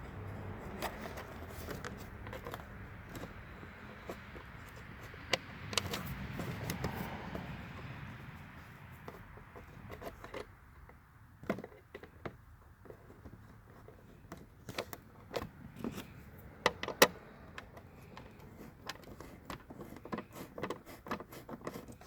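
Scattered light clicks, taps and rattles of a hand tool and plastic parts as the tail light assembly is seated and its bolt tightened.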